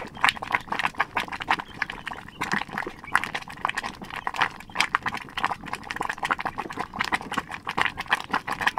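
Pot of corn grits boiling over a wood fire, with a dense run of quick, irregular pops and crackles.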